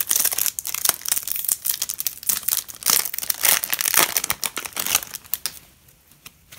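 Foil wrapper of a Yu-Gi-Oh booster pack crinkling and tearing as it is ripped open by hand, a dense crackle that stops about a second before the end.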